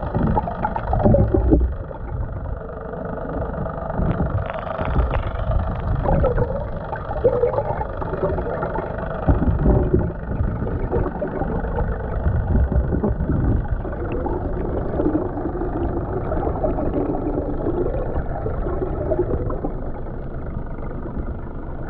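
Muffled rushing and sloshing of water heard through an underwater camera housing held beside a sailboat's bow below the waterline, rising and falling in uneven surges.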